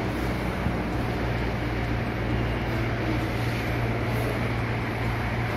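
Steady low mechanical hum under an even rushing noise, unchanging throughout.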